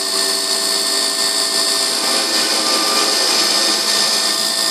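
Emco Compact 5 CNC lathe running under program, its boring tool cutting 6082-T6 aluminium: a steady machine whine of several even tones over the hiss of the cut.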